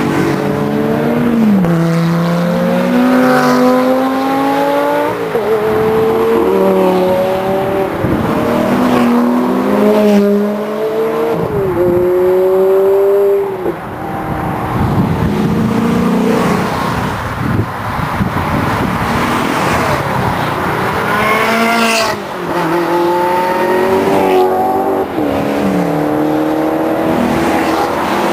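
Sports cars with V8, V10 and V12 engines, among them a Lamborghini Gallardo, accelerating hard past one after another, each engine note climbing and dropping sharply at every upshift. A sharp crack about three-quarters of the way through.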